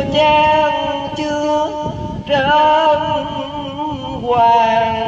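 One voice chanting Hòa Hảo Buddhist verse in the sung recitation style, holding long wavering notes in three drawn-out phrases, amplified through a microphone and portable speaker.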